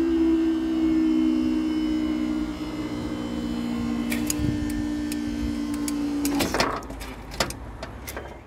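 Level crossing barrier mechanism running with a steady mechanical hum as the booms finish rising, cutting out about six and a half seconds in. A few sharp knocks follow.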